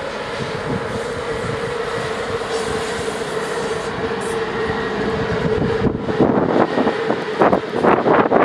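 Romanian CFR 060-EA electric locomotive running light past, a steady mid-pitched tone over the rushing rumble of its wheels on the rails. Loud irregular buffeting noise comes in over the last two seconds or so.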